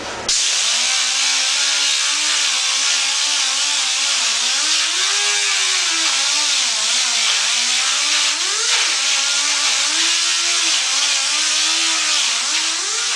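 Electric power sander switched on and grinding plastic from a mop bucket: a loud, steady hiss over a motor hum whose pitch wavers up and down as the tool is pressed into the plastic.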